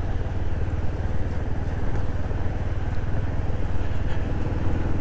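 Motorcycle engine running steadily while riding, with a fast, even pulse and no change in pace.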